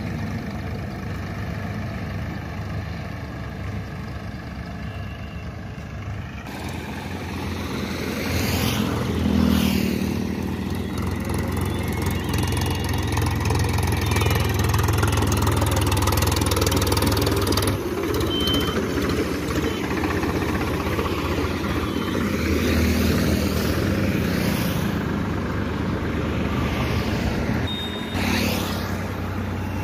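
Powertrac Euro 50 tractor's diesel engine running as the tractor drives with a rotavator hitched behind. The engine runs louder from about 8 seconds in.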